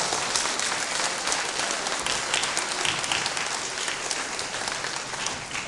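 An audience applauding, a dense patter of many hands clapping that dies down near the end.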